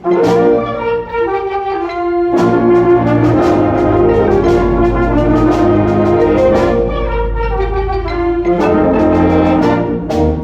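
Loud music led by brass instruments, many notes and chords over a low bass line, starting suddenly at full volume.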